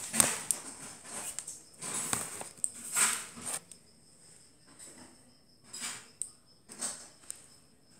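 Click beetle snapping its click mechanism, a series of sharp clicks as it flips and jumps: many loud clicks mixed with brief rustling in the first few seconds, then fewer, quieter clicks.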